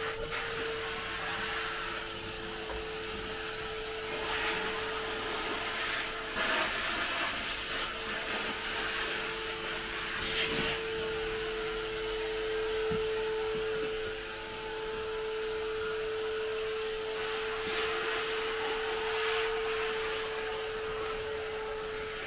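A motor running steadily: a constant mid-pitched whine over a steady hiss, with a few brief swells of noise.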